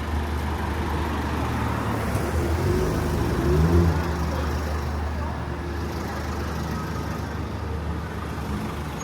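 Steady rumble of road traffic, with one vehicle's engine rising and falling in pitch as it swells about three seconds in.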